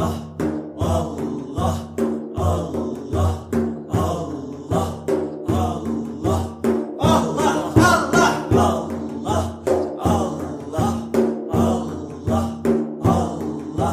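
Rhythmic chanted dhikr, the name of Allah repeated in time over a steady drum beat of about four strokes every three seconds, with a held low hum underneath.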